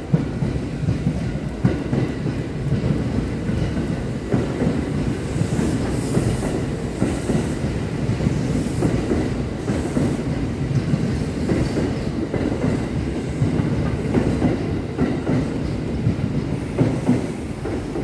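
Kintetsu 8000 series and 1252 series electric train pulling in and rolling past, a steady rumble with the clickety-clack of its wheels over the rail joints as the cars go by.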